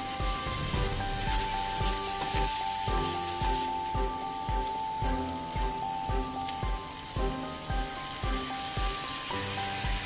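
Meat and minced garlic sizzling as they fry in a hot pan and are stirred with a spatula; the sizzle softens a few seconds in. Background music with a steady beat plays under it.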